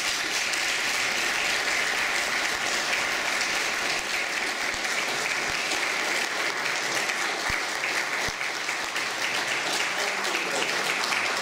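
Audience applauding steadily for about eleven seconds, welcoming a speaker to the podium.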